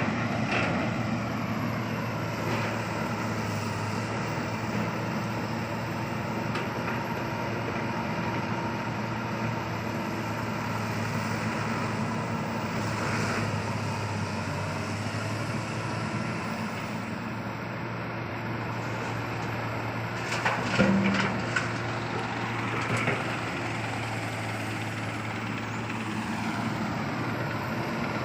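Heavy diesel earthmoving machinery running steadily with a low hum. About two-thirds of the way through there is a brief clatter of sharp knocks.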